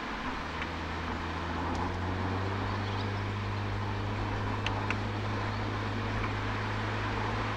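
Toyota Altezza's 1G-FE inline-six heard through its Apexi aftermarket exhaust, recorded at the rear bumper while driving slowly. A steady low drone rises slightly in pitch about two seconds in and then holds.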